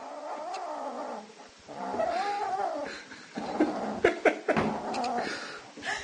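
Kitten growling and yowling in drawn-out, rising-and-falling calls while it holds a piece of food in its mouth: the food-guarding growl of a cat eating. A few sharp clicks come in the middle.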